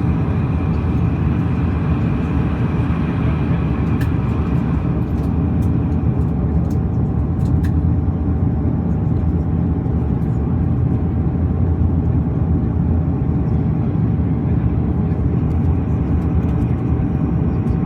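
Steady cabin drone of a Bombardier Dash 8 Q400 in flight: its two Pratt & Whitney PW150A turboprops and six-blade propellers heard from inside the passenger cabin, a deep rumble with a constant propeller hum over it.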